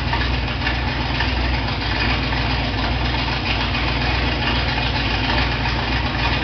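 Dodge V8 engine idling steadily with a low, even rumble.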